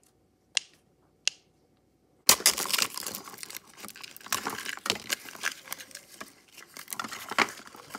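Three sharp little pops in the first second and a half, as the bubbles of a miniature silicone pop-it fidget toy are pressed. From about two seconds in, loud continuous crinkling and rustling of plastic wrappers as a toy capsule is opened and its contents unwrapped.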